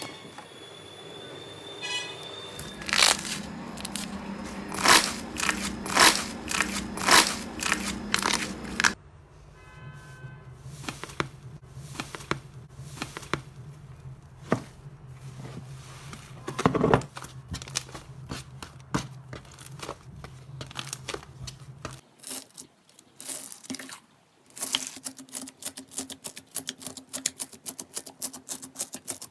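Slime being squeezed, pressed and poked by hands, giving sharp sticky clicks, pops and crackles. The loudest pops come in the first part. The sounds change at a few cuts between clips, ending in a fast run of small crackles.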